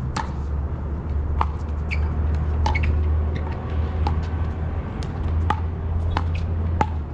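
Pickleball paddles striking the plastic ball: sharp, hollow pocks at irregular intervals, about one or two a second, over a steady low rumble.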